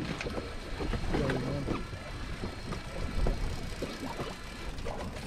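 Wind buffeting the microphone and choppy sea water slapping around a small open fishing boat, with scattered knocks and clicks.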